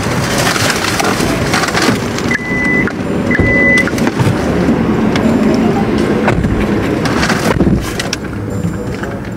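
Rummaging and knocking about inside a car as someone searches the back seat, over a steady car-cabin rumble, with two short electronic beeps a few seconds in.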